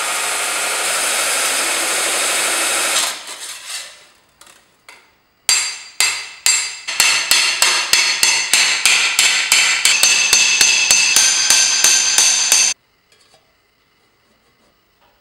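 A belt grinder runs as a steel plate is ground against it, then dies away over the next couple of seconds. After about five seconds, a hammer strikes sheet steel laid over a steel stake, slow at first and then about three to four ringing blows a second. The hammering stops suddenly a couple of seconds before the end, leaving near quiet.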